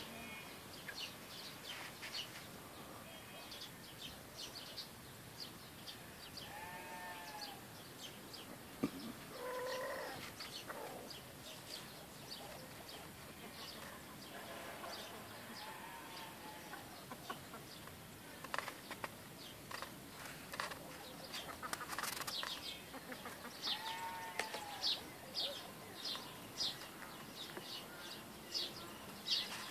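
Rural outdoor ambience: small birds chirping in quick, short notes, busiest near the end, with a few short livestock calls at intervals and an occasional sharp click.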